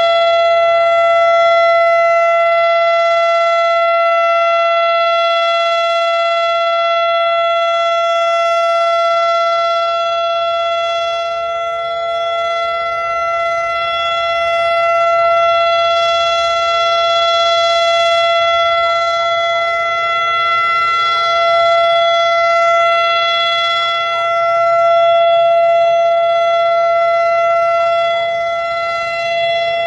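Federal Enterprises Thunderbolt 1000 warning siren sounding a steady wail at a held pitch during its weekly test, its several tones forming one chord. The loudness slowly swells and fades as the siren turns.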